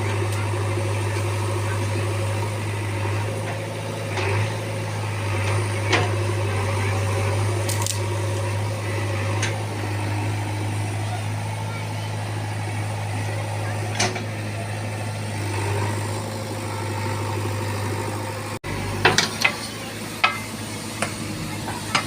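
Backhoe loader's diesel engine running steadily, with occasional sharp knocks and clanks that come more often near the end.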